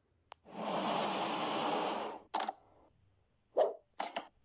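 Outro transition sound effects: a click, then a whoosh lasting about a second and a half, then a few short clicks and pops.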